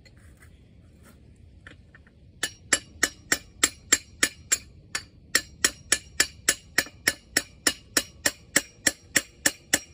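Hammer blows on steel against a part stuck on the camshaft of a Wisconsin V4 air-cooled engine: a steady run of sharp, ringing metal strikes, about three a second, starting about two and a half seconds in, with a brief pause midway. The part is held fast because the camshaft is riding on the valve lifters.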